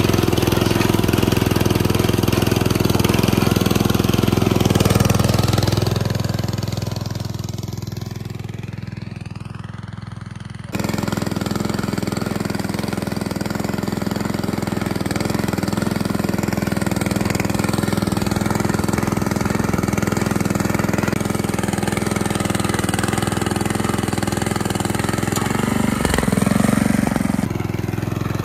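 Walk-behind tractor's small single-cylinder engine running steadily under load as it pulls a hiller through the soil, cutting furrows. The sound fades down over several seconds, comes back suddenly about eleven seconds in, and grows briefly louder near the end.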